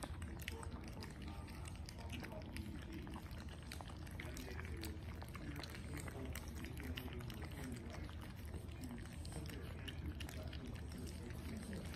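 French bulldog puppies eating raw food together: a continuous wet mix of smacking, lapping and chewing, full of small quick clicks, over a low steady hum.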